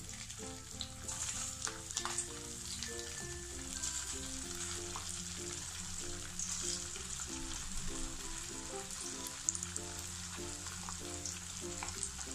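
Potato-and-semolina fingers deep-frying in hot oil: a steady sizzle with a few sharp crackles. Soft background music of short stepped notes plays underneath.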